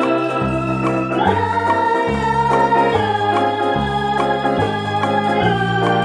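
Background music: held organ-like chords over a bass line that steps to a new note about every second.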